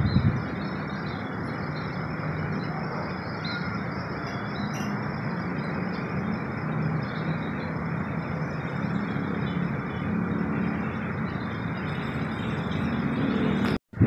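A gust of wind buffets the microphone right at the start, then a steady rushing outdoor noise carries on, with faint bird chirps high above it.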